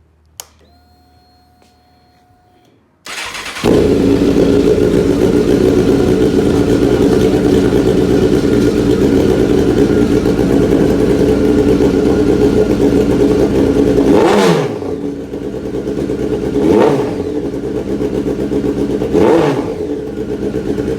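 Honda CBR954RR inline-four motorcycle engine: a click and a short steady whine as the key is switched on, then the engine starts about three seconds in and runs loud and steady. It is revved in a few short blips near the end, running loud before its exhaust is fitted.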